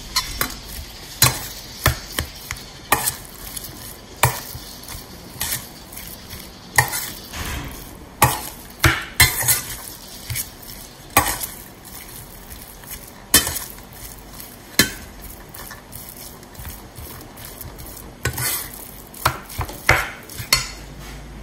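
A metal spoon stirring and folding a mashed tofu and potato mixture in a stainless steel bowl. It makes irregular sharp clinks and scrapes against the bowl.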